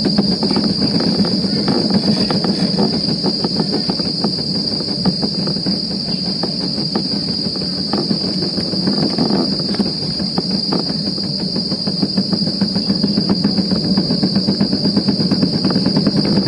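Gravity luge cart rolling along its track: a continuous dense rattle and rumble from the wheels, with a steady high-pitched whine over it.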